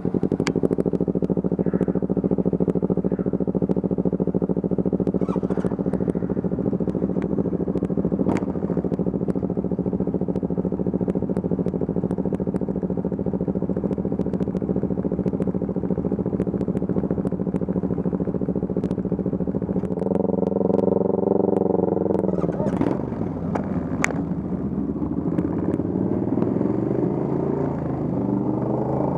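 Motorcycle engine running while riding, holding a steady note for about twenty seconds. The pitch rises a little, drops about twenty-three seconds in, then climbs slowly again as the bike speeds up.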